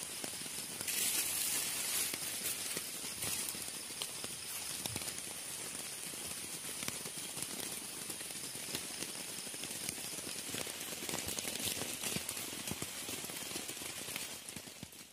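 Rain pattering steadily, with many small drop ticks. A steady high-pitched tone sounds over it and fades out about ten seconds in.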